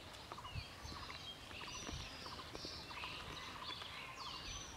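Birds chirping: short falling calls and quick rattling runs of notes, repeated every second or so. Under them come a few soft low thumps from hands working in the mud of the hole.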